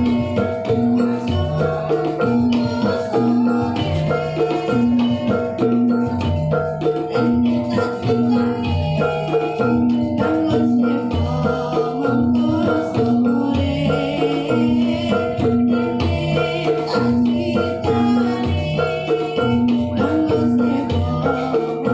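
Dance accompaniment music with mallet percussion and drums playing a steady, repeating rhythmic pattern.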